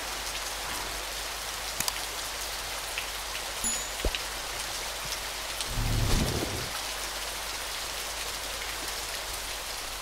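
Steady patter of rain, with scattered drips and a brief low rumble about six seconds in.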